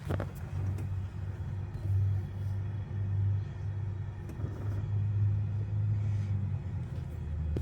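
A car engine running, a steady low rumble that swells and eases a few times.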